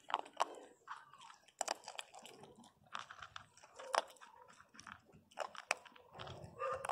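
A small dog crunching dry kibble from a metal bowl, a run of irregular crunches and clicks as it chews.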